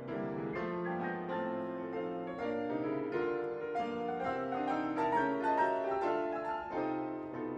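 A piano ensemble playing a ragtime piece: dense chords and quick, evenly rhythmic notes, swelling a little louder past the middle.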